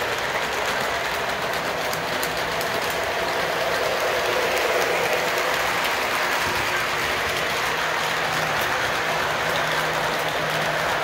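Model train running past on its track, a steady rumble and clatter of wheels and motor.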